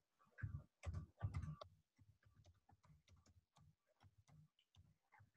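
Computer keyboard typing: light, quick keystrokes several a second, with a few louder short sounds in the first second and a half.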